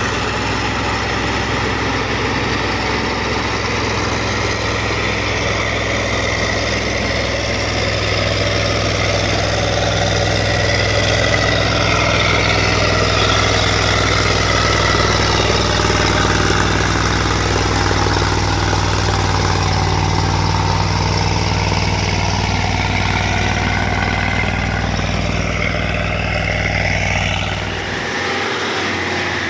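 Heavy diesel machinery running steadily: a crawler bulldozer and a logging truck working together on a muddy logging track. The engine sound changes abruptly near the end.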